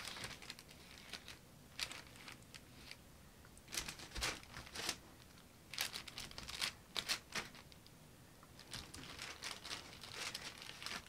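Gloved hands handling small paint cups on a plastic-covered work table: scattered short crinkles, rustles and clicks, in small clusters.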